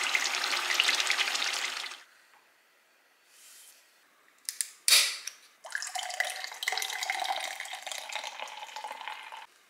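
Oyster and shrimp gambas sizzling and bubbling in oil in a cast-iron skillet, cutting off two seconds in. About five seconds in, an aluminium soda can is cracked open with sharp clicks and a short hiss, then sparkling soda is poured into a glass, splashing and fizzing steadily until just before the end.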